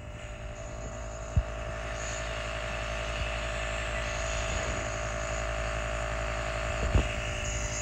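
Steady hum of a small electric motor running, slowly getting a little louder, with a few light knocks.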